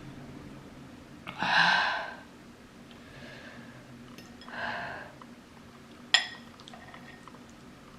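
A woman's sharp, breathy gasps through the mouth against the burn of extremely spicy noodles: a loud one about a second and a half in and a softer one near five seconds. A single sharp click about six seconds in.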